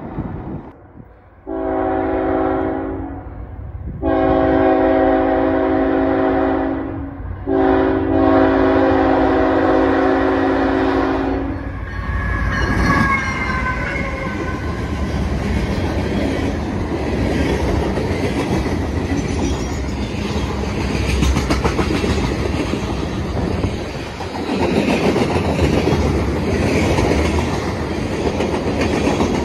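Diesel freight locomotive sounding its multi-note air horn in three blasts, each longer than the last. The train then passes at speed, the pitch dropping as it goes by, followed by the steady rumble and clickety-clack of freight cars rolling past.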